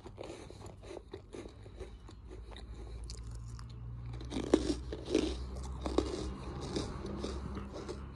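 A German Shepherd crunching and chewing a piece of jaggery, with irregular crunching bites, a few louder ones about four to six seconds in.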